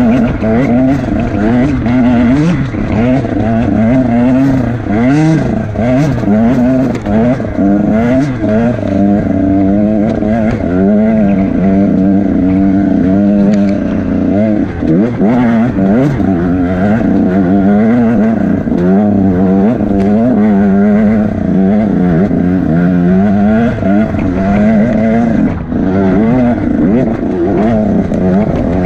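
Enduro motorcycle engine revving hard under load on a rocky uphill track, its pitch rising and falling every second or so as the throttle is worked.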